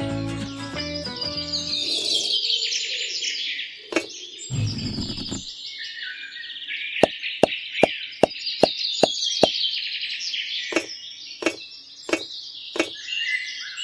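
Small birds chirping and trilling continuously, with music fading out about two seconds in. From about seven seconds in, a run of sharp taps or knocks comes at roughly two to three a second, then more spaced out toward the end.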